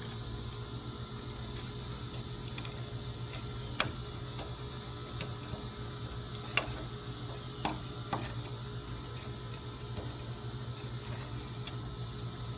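A few sharp metallic clicks and ticks as red-handled pliers press and work a rolled wire mesh into a brick weep hole, over a steady low hum.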